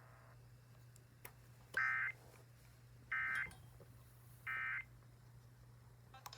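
Three short buzzy bursts of EAS SAME digital data tones, each about a third of a second long and about a second and a half apart: the end-of-message (EOM) signal that closes an Emergency Alert System warning. A faint steady low hum runs underneath.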